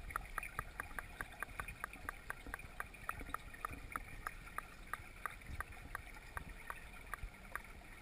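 Underwater sound in a swimming pool, heard through a GoPro's housing: a muffled low rumble with a regular run of sharp ticks, about five a second at first and slowing to about three a second.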